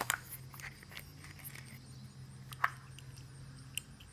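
Scattered small plastic clicks and taps from a toy capsule being handled and opened, one sharper click a little past halfway, over a faint steady low hum.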